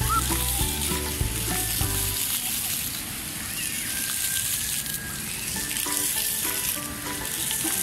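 Ground-level water jets of a splash-pad fountain spraying and pattering onto wet paving: a steady hiss. Music plays over it, and its deep bass part drops out about two seconds in.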